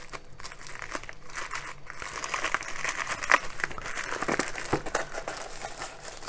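Plastic mailer bag crinkling and rustling as it is held down and cut open with scissors, with a few sharp snips and clicks, the loudest about three seconds in.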